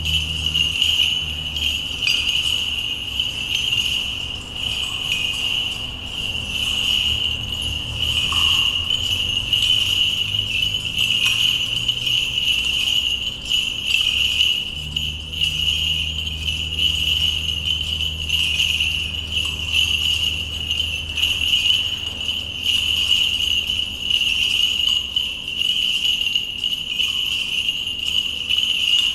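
Small bells on an Orthodox censer's chains jingling continuously as the censer is swung.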